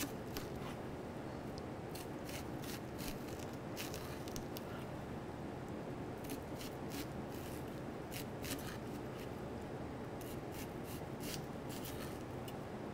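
Chef's knife cutting into a halved red onion and tapping a plastic cutting board: a series of short cuts, spaced out at first and coming quickly near the end.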